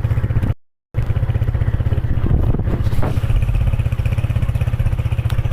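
Motorcycle engine running steadily while riding, a fast even put-put pulse, cut off completely for about half a second near the start.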